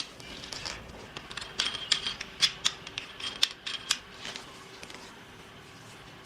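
Hard plastic aquarium hose extension pipes being handled and fitted together: a quick series of sharp clicks, taps and short squeaky scrapes that dies away after about four and a half seconds.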